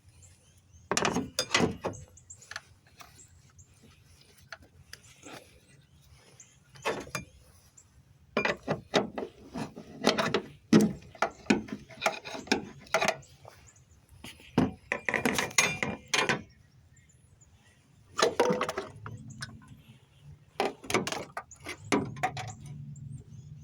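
Hand tools clicking and knocking on metal car parts in irregular bursts, with clusters of rapid clicks, during work on a Toyota Camry's motor mount.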